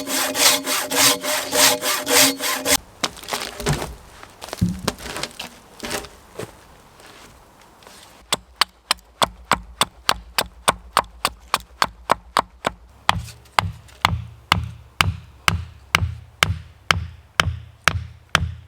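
A hand saw cutting through wood with fast, even strokes, stopping about three seconds in. From about eight seconds a steady beat of background music begins, sharp ticks about three a second, with a bass pulse joining partway through.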